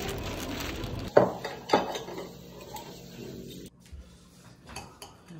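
For the first second, the steady hubbub of a busy shopping mall. Then two sharp clinks of tableware on a plate, a little over half a second apart, each with a short ring, followed by fainter clatter.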